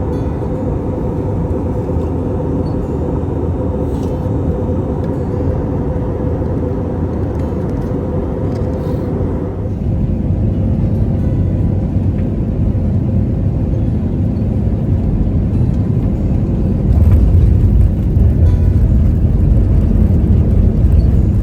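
Steady vehicle rumble with a constant hum, growing louder about ten seconds in and again near the end, then cut off abruptly.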